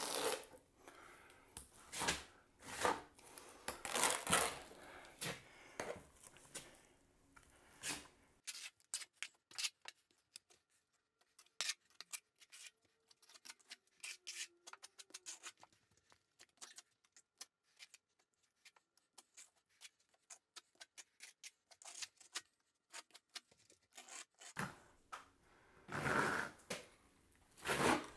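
Trowel scraping and spreading wet base-coat plaster over a ceiling patch in repeated strokes. A quieter stretch in the middle holds only light ticks and taps, and the strokes start again near the end.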